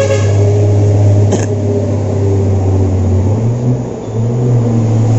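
A small engine running steadily with a low, even hum; its speed shifts briefly about three and a half seconds in. A short sharp click sounds about a second and a half in.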